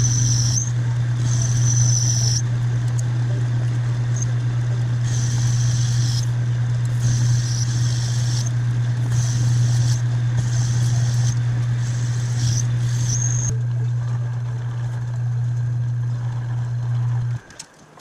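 Metal lathe running with a steady low motor hum while turning a small metal part. A higher cutting hiss comes and goes in short passes as the tool cuts, and the lathe shuts off shortly before the end.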